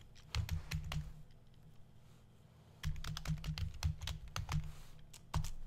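Computer keyboard typing: a short run of keystrokes just after the start, a pause, then a longer run of keystrokes from about three seconds in.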